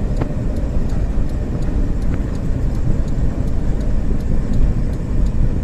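Steady low rumble of road and engine noise inside a moving Honda car's cabin.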